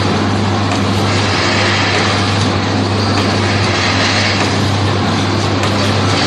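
Automatic ice-pop pouch packing machine running: a steady low motor hum under broad mechanical noise, with a hiss that swells and fades every couple of seconds.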